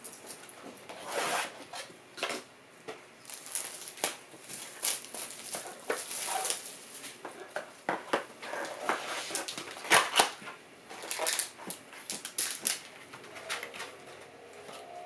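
Packaging of a 2021 Topps Tier One trading-card box being handled and opened: irregular crinkling, tearing and sharp clicks of cardboard and plastic.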